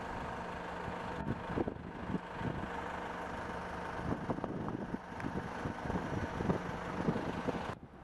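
Bobcat S175 skid steer loader's diesel engine running steadily, with scattered short knocks and clanks from about halfway through; the sound cuts off shortly before the end.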